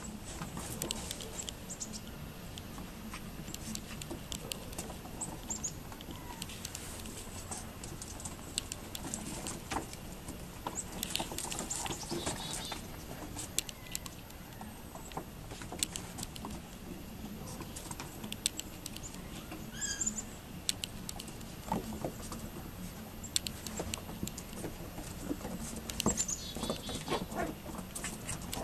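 Seven-week-old Yorkiepoo puppies' paws and claws clicking and tapping on wooden deck boards as they run and play, in many light, irregular clicks, with a few short high chirps here and there.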